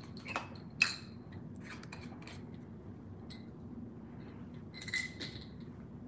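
Small glass and metal beads clicking and clinking as they are handled on a bead mat: a handful of light, scattered clicks, the sharpest about a second in and a few more near the end.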